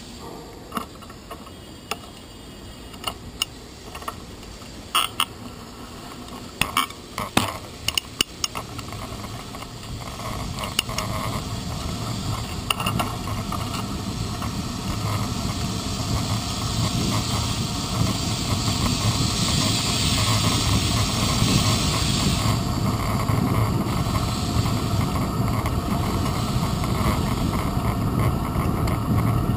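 Bicycle and its handlebar-mounted camera rattling, with sharp metallic clinks over bumps during roughly the first eight seconds. Then a steady rush of tyre and wind noise that grows louder as the bike picks up speed on the street, with a brighter hiss for a few seconds past the middle.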